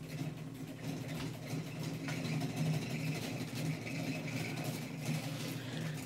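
Steady low electric hum from a kitchen appliance motor, with a faint hiss above it.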